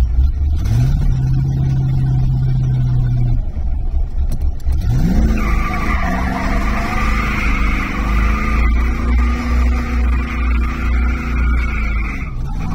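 Cobra 427 SC's V8 engine revved up and held at high revs, then revved again while the tires spin and squeal on the asphalt in a burnout. The high tire squeal runs for about seven seconds from roughly five seconds in. Near the end the revs drop and then climb again.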